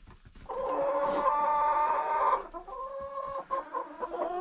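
Chickens squawking: a long drawn-out call from about half a second in, then a fainter, shorter call. These are agitated calls as new hens are mixed into the flock and the pecking order is contested.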